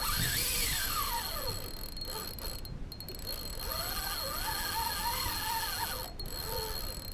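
Spinning reel's drag whining as a hooked mulloway pulls line, its pitch gliding with the speed of the run: a falling whine over the first second and a half, then a wavering whine from about four to six seconds in.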